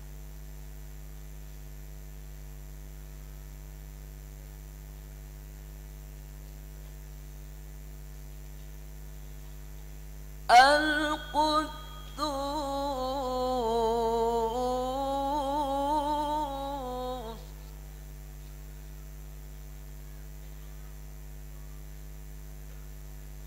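Steady electrical mains hum from the PA system. About ten seconds in, a man's voice through the microphone sings one long melodic phrase of Qur'an recitation for about seven seconds, its pitch dipping and rising again, before the hum carries on alone.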